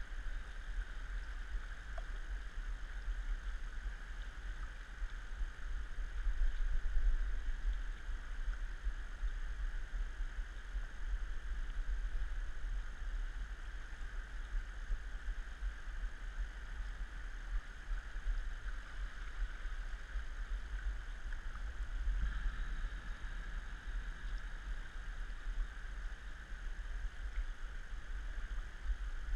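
Steady rush of a fast-flowing river with a constant low rumble.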